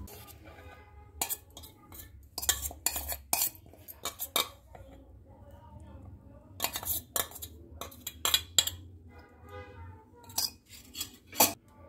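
Kitchen utensils clinking and knocking against dishes in irregular strikes, some leaving a short ring.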